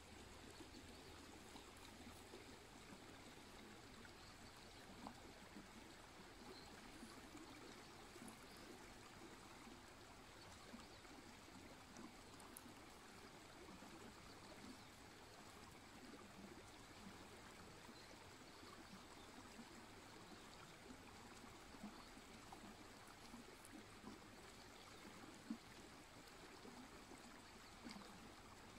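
Faint, steady babble of a shallow river running over stones and pebbles. There is a single faint click near the end.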